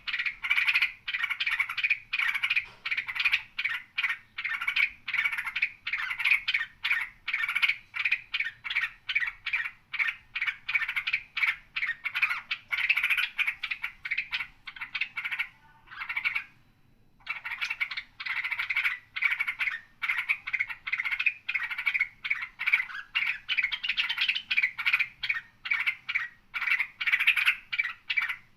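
Songbird chirping in fast, rattling strings of notes, with a short break about sixteen seconds in.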